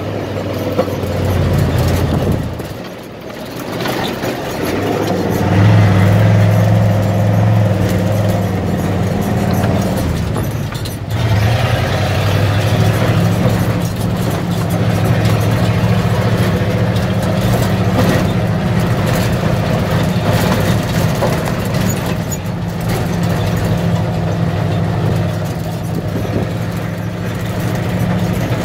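An old grain truck's engine running steadily as the truck drives, heard from inside the cab. There is a brief lull about three seconds in, after which it comes back louder, and a short dip about eleven seconds in.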